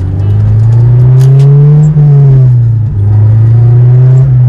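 Honda K24 2.4-litre inline-four accelerating hard, heard from inside the Civic's cabin. The revs climb for about two seconds, dip at a gear change and fall, then climb again.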